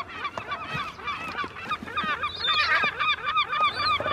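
A group of southern black-backed gulls calling over and over, many short rising-and-falling cries overlapping, as they are fed fish scraps.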